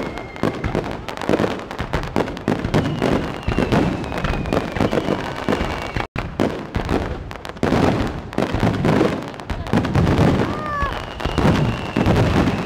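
Fireworks display going off in a continuous, rapid stream of bangs and crackling from bursting aerial shells and spark fountains. The sound drops out for an instant about six seconds in.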